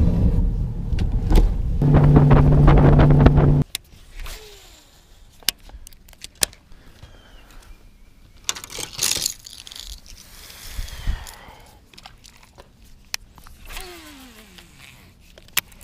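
Bass boat's outboard motor running under way, a loud low rumble with a steady hum, which cuts off abruptly about three and a half seconds in. After that, quieter clicks and knocks of rod, reel and boat handling, with a few short falling whines of reel line during casts.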